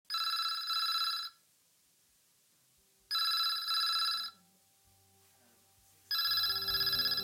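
A telephone ringing: three trilling rings, each a little over a second long, about three seconds apart.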